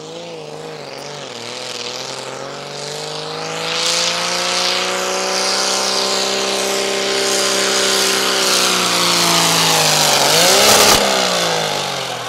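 Turbocharged engine of a Minneapolis-Moline pulling tractor working hard under load as it drags a weight-transfer sled, its pitch climbing slowly. About eleven seconds in there is a sharp crack, after which the engine note falls away.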